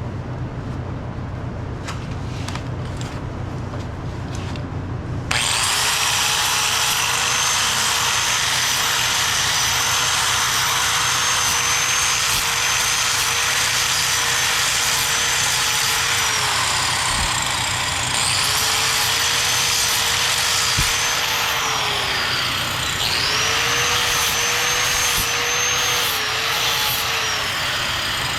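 Electric grinder grinding burrs off the worn pin bore of a steel hydraulic lift cylinder. It starts up about five seconds in and runs loud and steady to the end, its motor tone dipping a few times as it is pressed into the metal.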